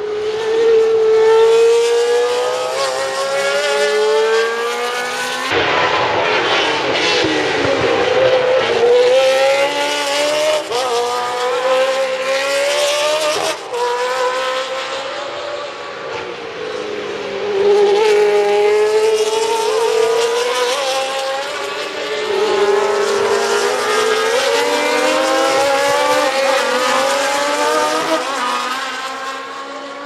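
Historic Formula One cars' racing engines passing one after another. Each engine rises in pitch as it revs up through the gears and drops at each shift, loud and high-revving.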